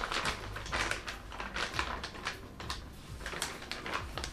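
Plastic vacuum-sealer bag crinkling and rustling in gloved hands as brisket is worked into it: an uneven run of small crackles and rustles.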